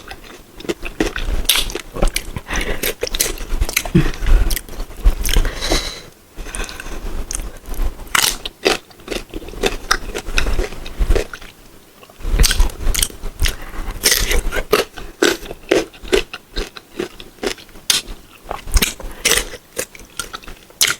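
Crisp crunching and chewing of unripe green mango: a long run of sharp bites and chews, broken by two short pauses.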